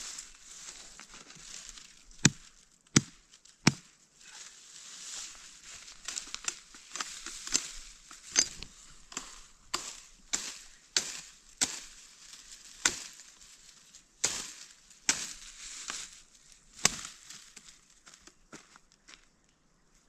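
A branch being chopped and trimmed into a walking stick: three hard, sharp chopping knocks about two to four seconds in, then a run of lighter cracks with crunching and crackling between them.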